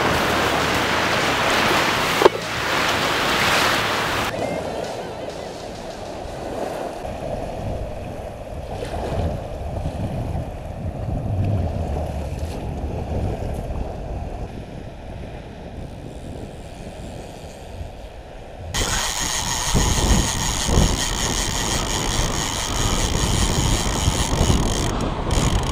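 Surf washing in the shallows with water splashing as a shark is pushed back out. About 19 seconds in, the sound cuts to the clicking and whirring of a heavy conventional saltwater reel being cranked.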